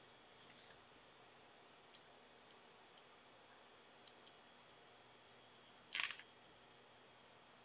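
Quiet room tone with a faint steady high whine, a scattering of light ticks, and one short louder clatter about six seconds in.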